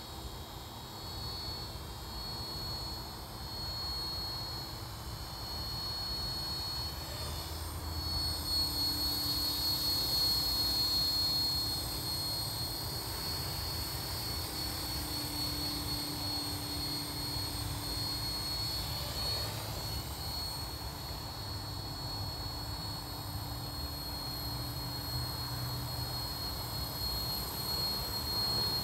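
Align T-Rex 450 electric RC helicopter in flight, its brushless motor and rotors giving a steady high-pitched whine. It grows louder about eight seconds in and eases back a few seconds later.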